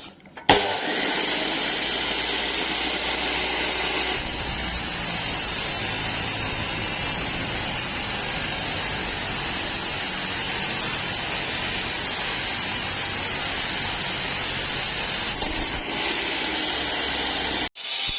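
Loud, steady hissing noise of steel fabrication work, starting sharply about half a second in and cutting off abruptly near the end.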